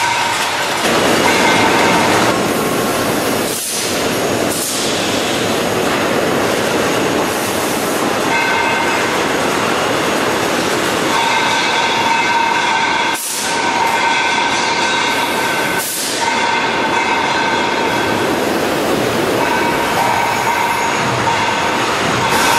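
Concrete roof tile production machinery running: a loud, steady mechanical din with a whine that comes and goes, broken by a few brief sudden dips.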